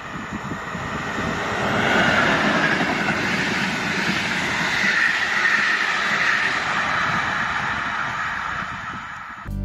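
A passing express train hauled by a ČD class 362 electric locomotive: the rumble and hiss of its wheels on the rails builds as it approaches, is loudest as the coaches run by, then fades as it recedes. It is cut off abruptly near the end.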